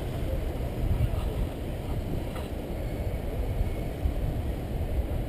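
Wind from a paraglider's flight buffeting the camera microphone: a steady low rumble of wind noise.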